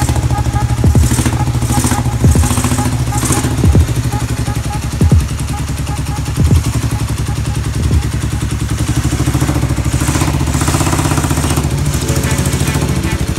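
Kawasaki EN500 motorcycle's parallel-twin engine running, with a sharp pop roughly every second and a half through the first half.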